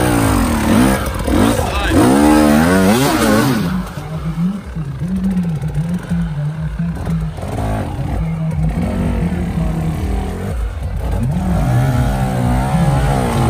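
Enduro dirt bike engine revving in rising and falling sweeps. It drops to a low, uneven running note for several seconds in the middle, then revs up and down again near the end.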